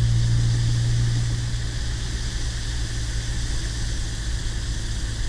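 Car engine and road noise heard from inside the moving car's cabin: a steady low drone that drops in level a little over a second in.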